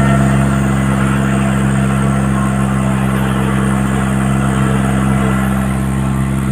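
Tractor engine running steadily at a constant speed, with a low, even hum and no revving.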